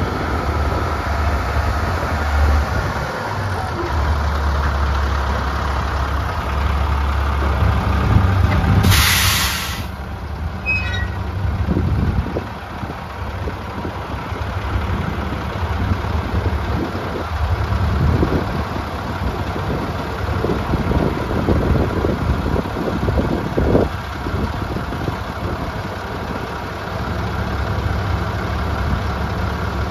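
Diesel engine of an International 2574 dump truck running as the truck pulls up, with a loud hiss of the air brakes being set about nine seconds in. The engine then runs on with uneven swells while the dump bed is raised.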